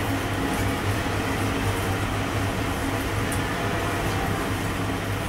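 A concerto of five swinging church bells tuned in E-flat (Pruneri of Grosio, 1892 and 1900), rung by hand with ropes in the Ambrosian style, heard from the ringers' position in the tower: the bells' tones overlap into a steady, dense ringing.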